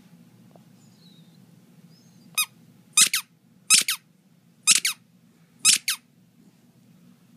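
Squeaky toy ball squeaking as a small dog chews it: one short squeak, then four quick double squeaks about a second apart, high-pitched.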